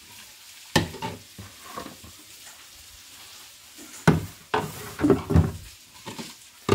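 Plastic jars and bottles being handled and set down on a laminated cabinet shelf: separate clacks and knocks, a few about a second in and a quicker run of them from about four seconds in.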